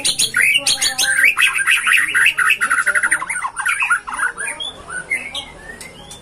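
A bird singing: loud chirps and pitch sweeps, then a fast rattling trill of about ten notes a second in the middle, fading off near the end.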